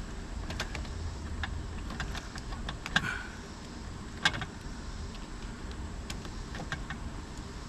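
Scattered small clicks and taps of hand tools and wiring hardware being worked on an electrical receptacle, with two sharper clicks about three and four seconds in, over a low steady hum.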